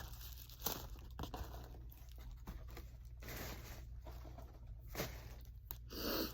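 Paper packaging, tissue paper among it, rustling and crinkling in the hands as a box is unpacked, with a few small clicks and taps and a short louder rustle near the end.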